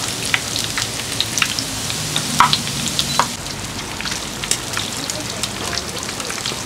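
Battered food deep-frying in a large wok of hot oil: a steady sizzle with many sharp crackles and pops.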